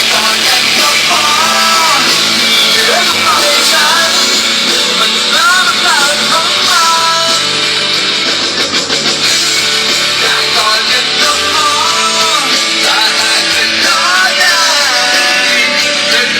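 Loud music: a song with a singing voice, held at a steady level throughout.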